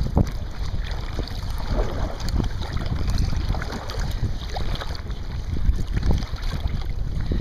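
Wind rumbling on the microphone over water sloshing and splashing around a kayak.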